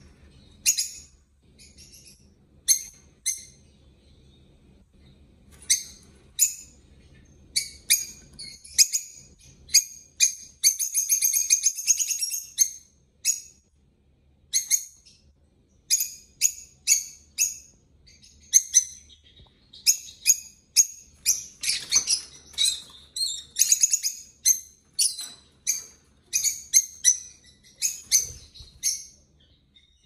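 Pet lovebirds and budgies chirping: many short, sharp, high calls in quick succession, with a denser chattering run about eleven seconds in.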